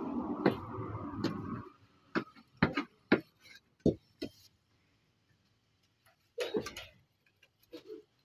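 Wooden cooking stick scraping and knocking against a metal pot as ugali is stirred and pressed. A rough scrape that stops abruptly, then a string of sharp, irregular knocks.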